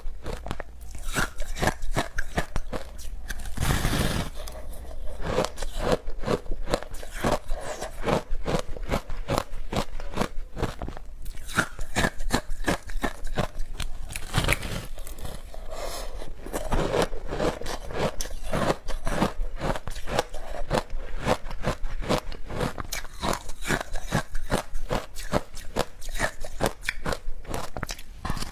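Biting and crunching through a ball of passion-fruit shaved ice: crisp crunches come several times a second, with louder bites about four seconds in and near the middle.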